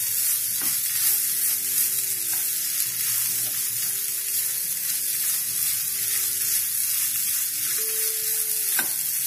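Vegetable mixture with crumbled paneer sizzling in a non-stick frying pan on a medium flame while a spatula stirs and scrapes it, with a few soft knocks of the spatula against the pan. The filling is being dry-roasted to drive off its moisture.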